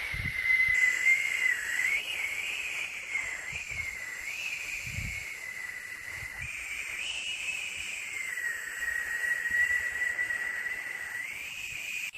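White noise for lulling a baby to sleep: a steady hiss with a whistling tone that wavers slowly up and down in pitch.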